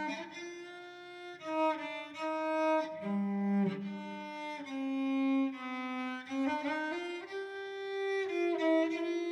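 Cello bowed, playing a slow melody of held notes that change pitch every second or so.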